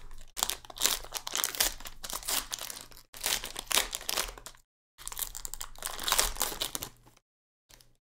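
Foil trading-card pack crinkling and crackling as it is torn open and the cards pulled out, in three stretches with short pauses between.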